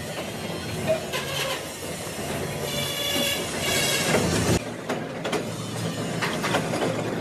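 Metal lathe turning a mild-steel truck wheel rim plate: a steady running drone with a high, intermittent squeal of the cutting tool scraping the steel. The sound changes abruptly about four and a half seconds in, then the machining carries on.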